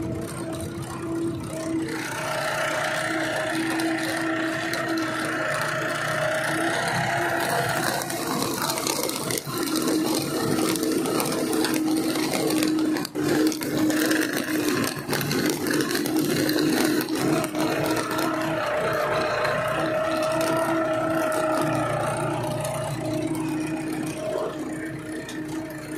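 Tractor engine running steadily while pulling a seed drill through the field, with the drill's metal frame and seed box rattling.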